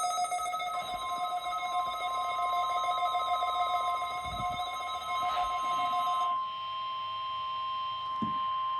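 Weather alert radios sounding their alarms for a required weekly test: one radio's buzzy alert tone runs until about six seconds in, and about a second in a steady, pure high alert tone starts and holds on past the end. A few soft thumps come in the middle and near the end.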